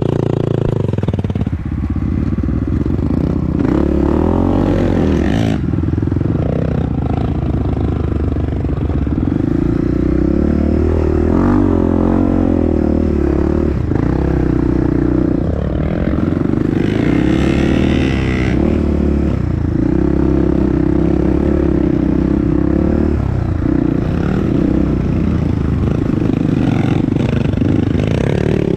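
Honda CRF dirt bike engine running under way, its pitch rising and falling as the throttle opens and closes, with clatter from the bike over rough ground.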